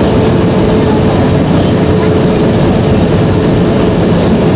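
Steady cabin noise inside an Airbus A320 in flight: the engines and rushing air heard from the passenger cabin, with a steady hum running through it.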